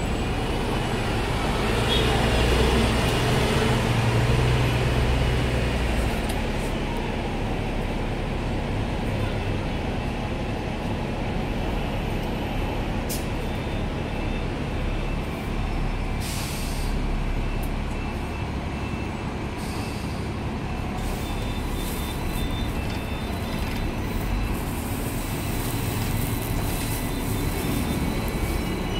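Steady running noise heard from aboard a Hong Kong double-decker tram, mixed with street traffic. A bus engine rumbles close alongside for the first few seconds, and a few short hisses come in the middle.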